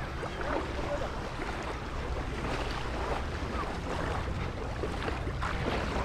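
Windy seaside ambience: wind buffeting the microphone with a steady low rumble over the wash of the sea.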